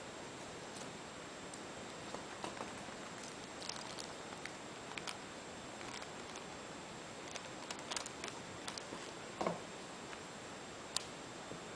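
Scattered light clicks and taps as a 1:200 model airliner and its packaging are handled, over a steady hiss. There is a louder knock about nine and a half seconds in and a sharp click near the end.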